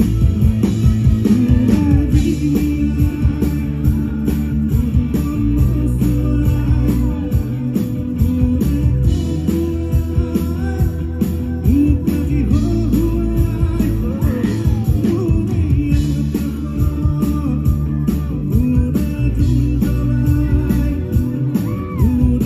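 Live band performing an Assamese song: a male singer over electric guitar, bass guitar and a drum kit keeping a steady beat.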